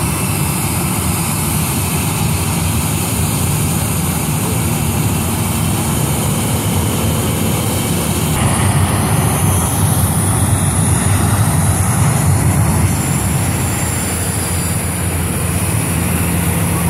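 Boeing 737-800's CFM56 jet engines running loudly on the runway, growing louder about halfway through as they go up to takeoff power and the airliner starts its takeoff roll.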